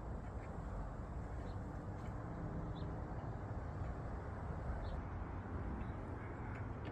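Slow, faint ticking of an antique J H German two-weight grandfather clock's movement over a steady background rumble and hiss.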